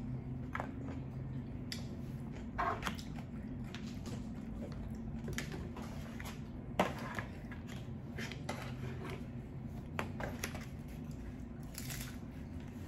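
Crunching and chewing of hard-shell tacos close to the microphone: scattered sharp, crisp crunches, over a steady low hum.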